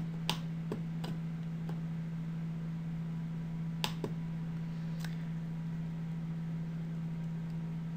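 Steady low electrical hum with a handful of short, sharp clicks at the computer, about seven of them scattered over the first five seconds, two in quick succession near the middle.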